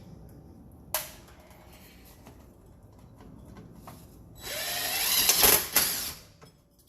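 A power drill runs for about two seconds near the end, its pitch rising as it spins up, typical of driving a screw. A single sharp click comes about a second in.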